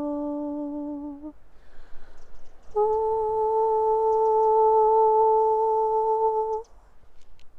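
A woman's voice humming long held notes in light-language toning. A low note ends about a second in, and after a breath a higher note is held steady for about four seconds.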